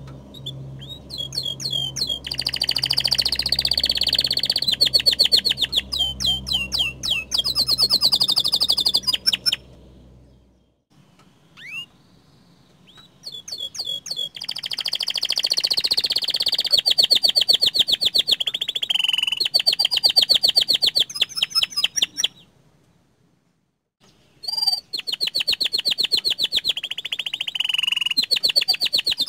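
Domestic canary singing in full voice: three long bouts of fast rolling trills and chirps, broken by short pauses about ten and twenty-three seconds in. A low steady hum lies under the first bout.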